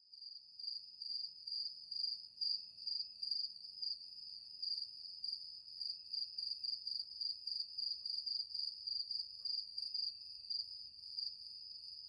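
An insect's steady, high-pitched chirring, pulsing a few times a second without a break, of the kind made by a cricket or cicada.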